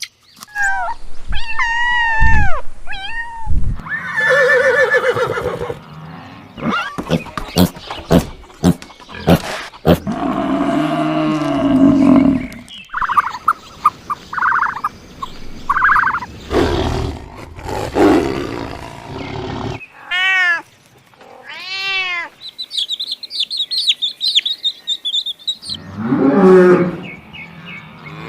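A string of different animal calls cut one after another, among them low roars. The calls are short, each of a different kind, with brief pauses between them.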